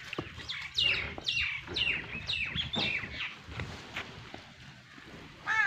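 A bird calling: a quick series of about six falling chirps, roughly two a second, then a pause and one more chirp near the end.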